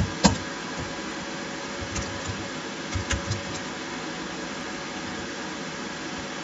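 A few scattered computer keyboard keystrokes over a steady background hiss, the clicks falling within the first three and a half seconds.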